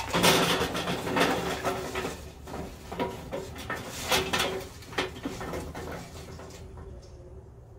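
Fully lit, ashed-over charcoal briquettes tumbling out of a metal chimney starter onto a grill's charcoal grate. A clatter of clinks and knocks, busiest at first, with a few louder knocks midway, then thinning to scattered clinks.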